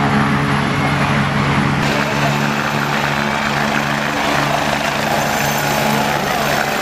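Helicopter lifting off and climbing away over the trees, its rotor and turbine giving a loud, steady drone.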